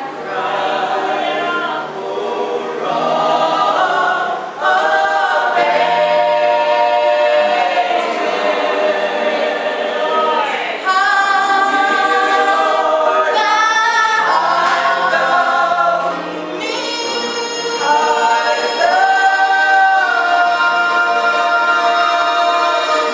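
Church choir singing, the voices holding long notes that change pitch every second or two.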